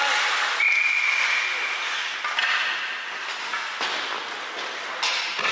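Ice hockey game rink noise: a steady hiss, a whistle blast held for about a second about half a second in, then three sharp knocks.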